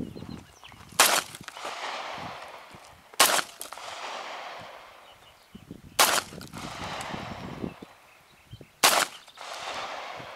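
Four single shots from an AR-15-style gun, spaced two to three seconds apart, each followed by a long echo off the surrounding hills.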